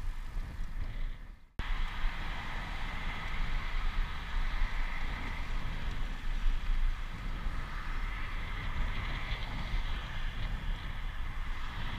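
Wind buffeting the microphone of a camera riding along on a bicycle, over steady tyre and road hiss. The sound fades out briefly about a second and a half in and then comes back abruptly.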